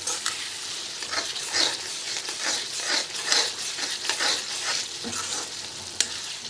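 Onion-tomato masala sizzling in hot oil in a kadhai while a spatula scrapes and stirs through it in regular strokes, with one sharp knock near the end. The masala is being fried until the oil separates.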